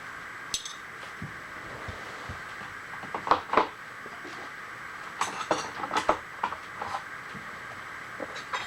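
Metal tools and parts clinking and clanking as they are handled, in scattered knocks with a busier run in the middle, over a steady mid-pitched shop hum.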